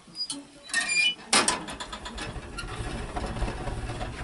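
Metal squeaking and a loud clank about a second and a half in as the door of a small sheet-metal wood stove is shut, then a steady low rumble of the freshly lit fire drawing hard in the firebox.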